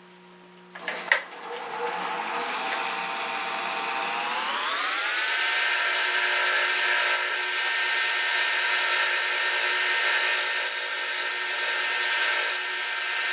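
Wood lathe switched on about a second in, its motor whine climbing in pitch as it spins up, then running steadily at speed. A gouge shaves the spinning yellow birch bowl blank, adding a hiss over the whine.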